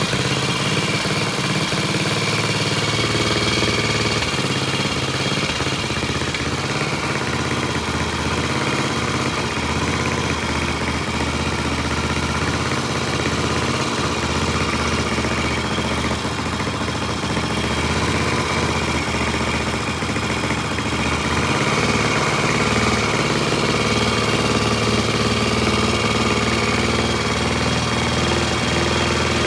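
Vintage Triumph single-cylinder motorcycle engine idling steadily.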